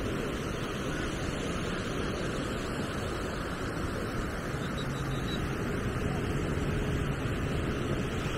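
Beach ambience: a steady wash of surf with wind buffeting the microphone. A faint steady hum joins about halfway through.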